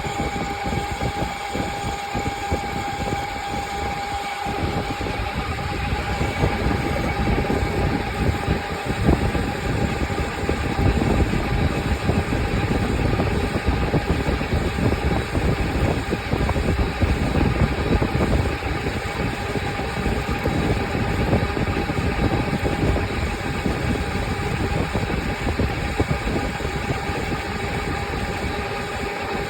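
A machine running steadily: a continuous rumble with a constant whine on top.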